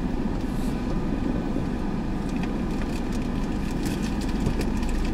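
Car driving slowly over a dirt yard strewn with dry leaves: a steady low rumble of engine and tyres, with scattered crackling and snapping under the wheels over the second half.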